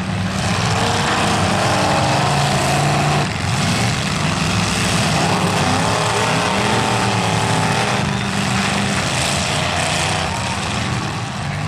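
Several demolition derby cars' engines running loud and revving up and down as the cars drive and ram one another, with voices mixed into the din.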